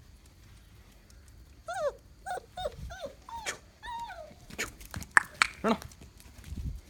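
A dog whining in a string of about seven short, high cries, each bending up and then down in pitch, followed by a few sharp clicks and one short yelp about five seconds in.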